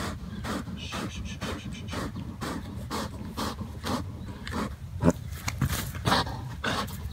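A buck deer pinned to the ground and tangled in netting, panting hard in short breaths about twice a second, with wind rumbling on the microphone.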